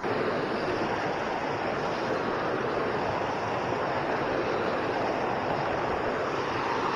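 Steady rush of flowing water, an even noise without distinct splashes or knocks.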